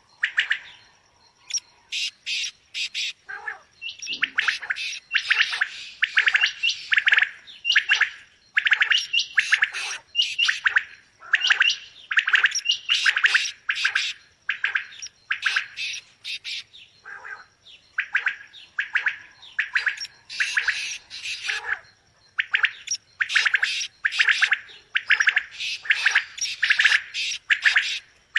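Quail calling: rapid bursts of short, sharp notes in clusters, repeated again and again with brief pauses between groups.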